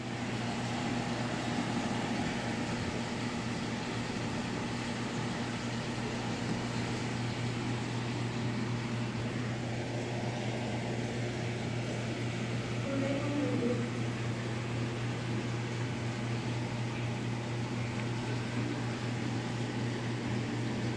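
Steady low hum with a constant hiss from running aquarium equipment such as a pump and filter, unchanging throughout; a faint brief pitched sound about thirteen seconds in.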